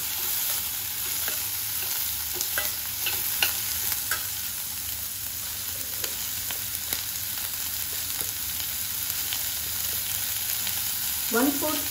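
Sliced onion and bell peppers sizzling steadily in oil in a non-stick kadhai, with a steel spoon clicking and scraping against the pan as it stirs, mostly in the first four seconds.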